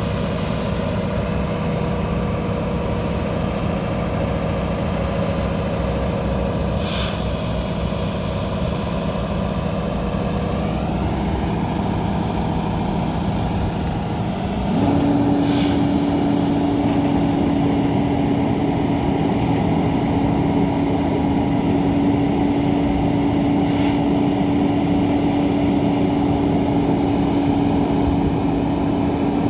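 Freightliner M2 concrete pump truck's diesel engine running steadily. About halfway through it grows louder and a steady whine sets in and holds. Brief hisses come every eight seconds or so.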